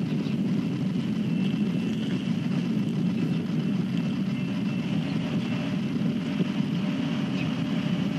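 Steady low rumble picked up by a trackside railcam's outdoor microphone, with a faint thin high tone above it.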